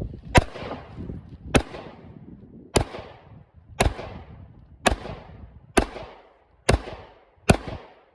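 Glock 43 9mm pistol fired eight times in slow aimed fire, about one shot a second, the last few a little quicker. The pistol runs through a stock Glock magazine with a +2 base plate without a failure.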